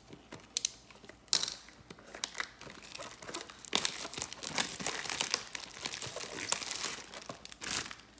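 Plastic wrapping on a trading-card blaster box being torn open and crinkled by hand: a dense run of irregular crackles and rips, loudest about a second in.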